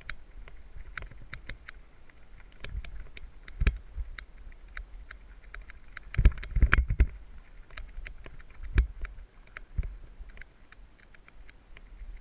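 Mountain bike rattling and clicking over a rough dirt trail: many sharp, irregular clicks, with a few heavier low thumps scattered through, the loudest cluster a little past the middle.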